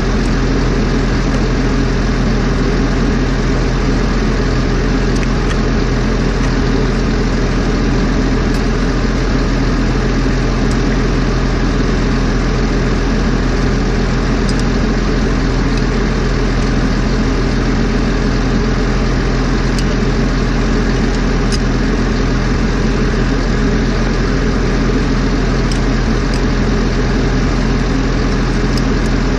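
Heavy machine's engine idling steadily, with a few faint light clicks over it.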